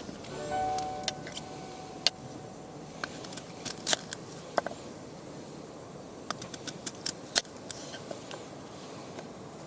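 Irregular sharp clicks and light clinks over a steady low hiss, with a brief tonal sound about half a second in.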